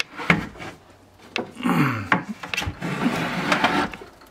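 Handling noise from a camera being moved close against a cotton hoodie: rubbing and rustling with scattered knocks and clicks, and a short falling tone about two seconds in.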